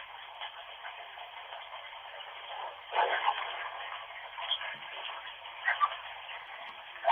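Bath tap running into a bath, heard through a Nokia phone's narrow-band recording: a steady hiss of water with a few louder swells, one about three seconds in and another near six seconds.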